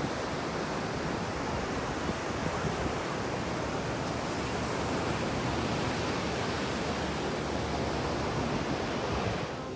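Ocean surf breaking and washing onto a sand beach, a steady rush of noise with no distinct strokes.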